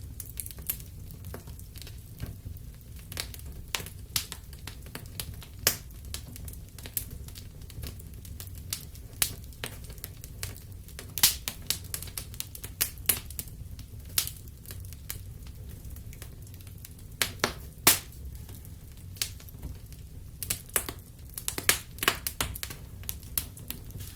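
Wood fire in a fireplace crackling: irregular sharp pops and snaps, a few loud ones, over a steady low rumble of the flames.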